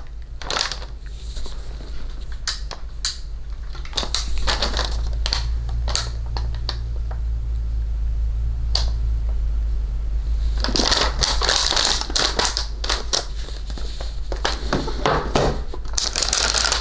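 Packaging being handled: crinkling and rustling with scattered clicks and knocks, thickest about eleven seconds in and again near the end, over a steady deep hum.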